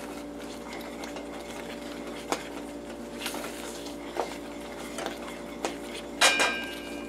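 Wooden spoon stirring thick chocolate brownie batter in a stainless steel saucepan, with a few light knocks against the pan about a second apart. Near the end, a louder clatter with a short metallic ring as the spoon hits the pan.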